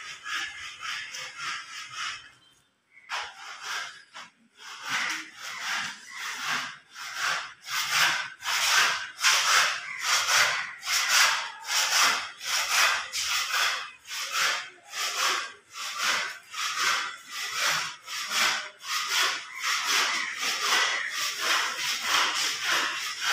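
Rhythmic rasping strokes, about two a second, like a tool being drawn back and forth over a rough surface. They break off briefly about three seconds in, then carry on steadily.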